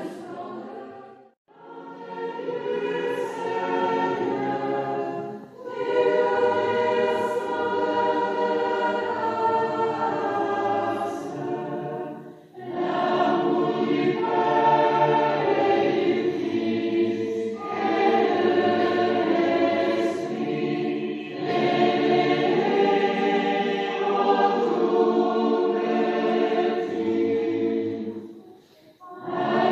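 Choir singing a sacred hymn in long held phrases, with short breaks between the phrases.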